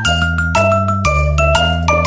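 Background music: a bright mallet-percussion melody over bass notes, with a new note about twice a second and the melody stepping downward.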